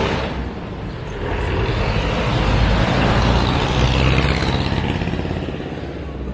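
Street traffic: a motor vehicle's engine rumble and tyre noise swell as it passes close by, loudest about three to four seconds in, then fade away.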